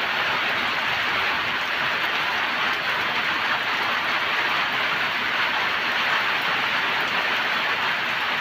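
Hail and rain falling together in a dense, steady patter.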